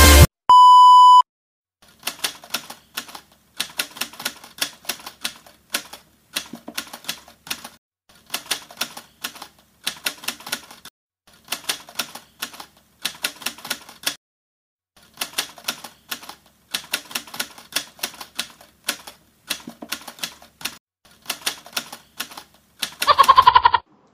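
Typewriter sound effect: bursts of rapid key clatter, each about a second long with short gaps between, as on-screen text is typed out. It opens with a short beep, and a brief loud pitched sound effect comes near the end.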